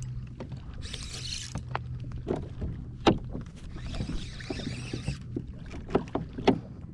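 Handling noise in a Hobie Outback kayak while a hooked redfish is being played: several sharp knocks and clicks, the loudest about three seconds in and another near the end, with two brief rushes of noise and a steady low hum underneath.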